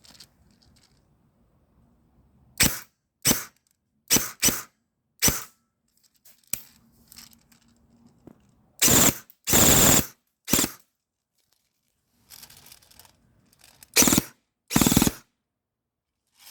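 G&G ARP556 electric airsoft rifle firing: a handful of single shots, then several short bursts of automatic fire, each about half a second long.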